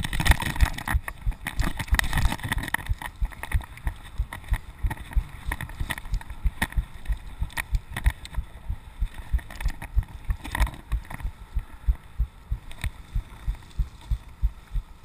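Mountain bike ridden over a dirt trail, picked up by a chest-mounted GoPro: a rush of wind noise in the first few seconds, then a quick run of low thumps, about three a second, with a few sharp clicks, as the bike and camera jolt over the rough ground.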